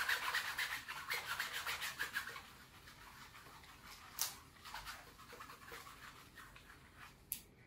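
A whiteboard eraser scrubbed back and forth across a whiteboard in rapid strokes, loudest for the first two and a half seconds and then softer. Two short, sharp clicks sound about four seconds in and near the end.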